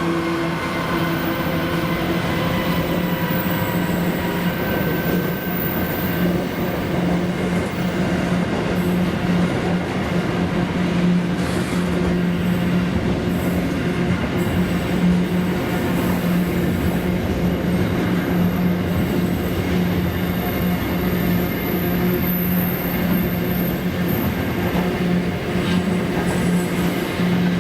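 Freight train rolling past at a steady pace: continuous wheel-on-rail rumble with a steady low hum, and a thin high squeal now and then.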